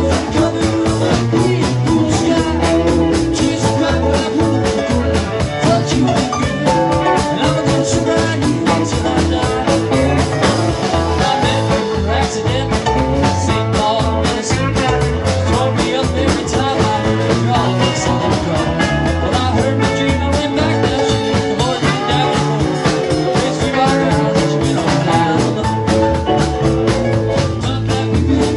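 A rock band playing live: drums keep a fast, steady beat under electric guitars and bass.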